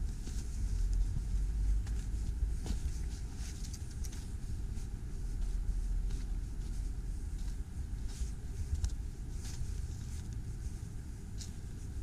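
Footsteps on thin snow and dead twigs, a scattering of short crunches, over a steady low rumble.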